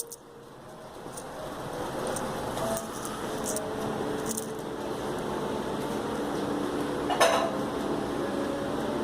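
Light clicks and clinks over steady room noise, with one short, louder noisy sound about seven seconds in.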